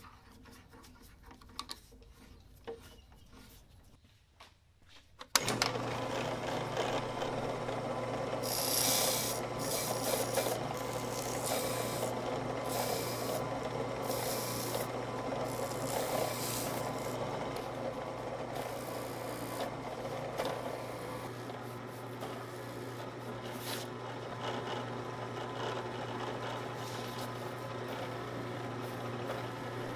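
A few small clicks as a small round cutter is fitted into a drill press chuck by hand. About five seconds in, the drill press motor switches on and runs with a steady hum. The spinning cutter scrapes through sandpaper in a run of rasping strokes, cutting out small discs.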